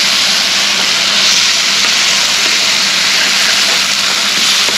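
Loud, steady sizzling hiss of food frying in hot oil.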